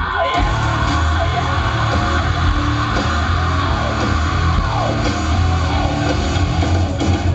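Live rock band playing loud: electric guitars, bass and drums, with yelling over the music. The full band comes in right at the start.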